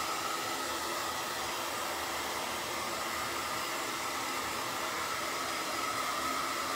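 Handheld electric dryer running steadily, blowing air over wet paint to speed-dry it: an even rushing hiss with a faint steady whine.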